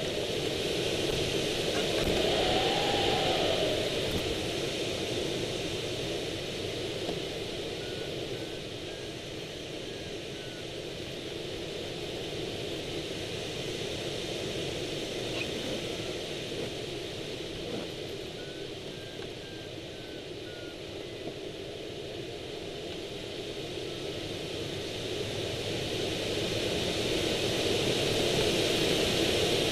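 Rushing airflow over a Swift rigid-wing hang glider in flight, louder near the start and end and softer in the middle as the airspeed changes through wingovers. A variometer beeps in two short runs, rising then falling in pitch, about eight and nineteen seconds in.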